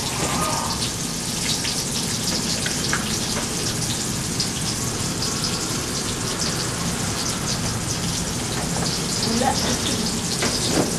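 Food frying in hot oil in a pan: a steady sizzle with fine crackling throughout, and a light knock near the end.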